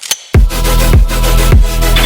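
Electronic dance music with heavy bass. After a brief break it comes back in about a third of a second in, with repeated bass hits that slide down in pitch.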